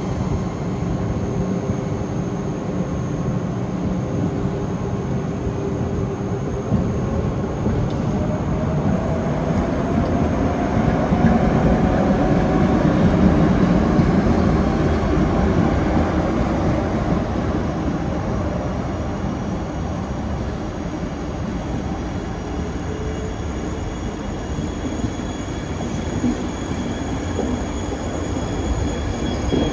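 ÖBB class 1144 electric locomotive pulling a passenger train away and past, its traction equipment giving a rising whine as it accelerates; the sound is loudest as the locomotive goes by, then the coaches roll past with a steady rumble.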